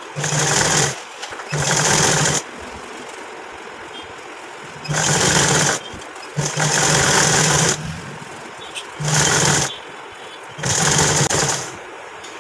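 Domestic sewing machine stitching in six short runs, each lasting about a second and separated by brief pauses, as the folded plazo waistband is sewn down to form the elastic casing.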